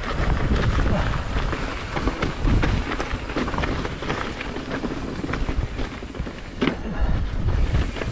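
Wind buffeting the GoPro's microphone while a hardtail mountain bike rattles and knocks over rough trail, with a sharper clunk about six and a half seconds in.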